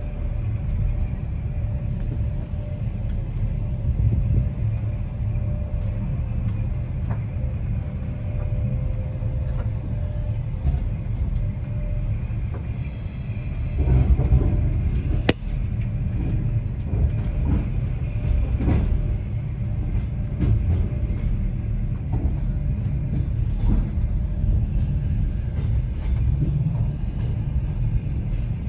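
Freight train of flatcars rolling past on the rails, a steady low rumble with a faint steady whine in the first half. A louder stretch of wheel clatter and knocks comes about halfway through.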